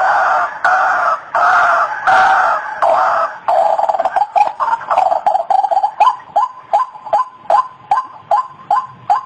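White-breasted waterhen calling: loud, harsh, grating calls run together over the first few seconds, then settle into a steady series of short repeated notes, about two and a half a second.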